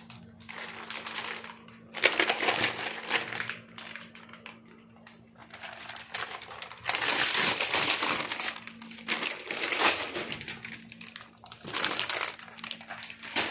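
Plastic packaging crinkling and rustling in several bursts as goods are pulled from a packed box. The loudest stretch is about seven to nine seconds in.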